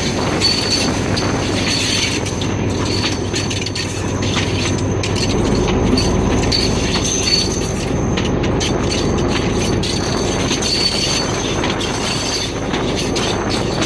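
Train rolling along the track: a steady rumble of wheels on the rails, with a thin high-pitched tone from the wheels above it.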